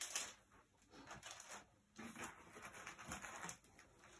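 Faint rustling and light handling noises of packaging, in a few short patches.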